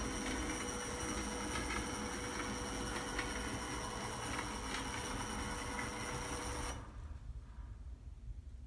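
Graffiti-removal gantry robot's motors running with a steady mechanical whine and a few clicks, cutting off about seven seconds in.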